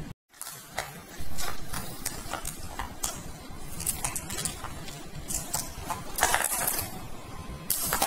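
Hands handling objects inside a perforated plastic basket: an irregular run of light clicks and rattles, with louder rustling bursts near the end.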